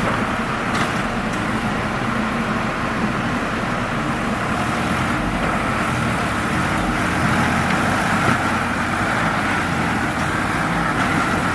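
Heavy diesel machinery engine running steadily.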